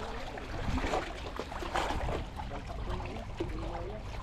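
Seawater lapping and sloshing against the rocks at the waterline, with a few brief knocks and rustles from handling close by.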